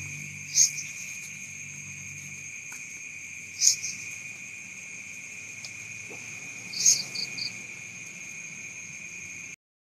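Night-time chorus of crickets and other insects trilling steadily on two high pitches. A louder, short high chirp comes about every three seconds, and the third is followed by three quick pips.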